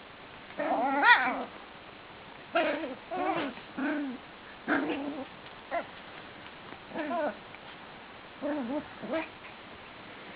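A dog making a string of short, wavering whines and yowls while playing, about nine calls with pauses between them. The longest and loudest comes about a second in.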